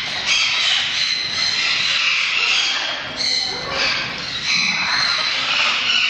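A flock of parrots, mostly macaws, squawking and calling over one another without a break.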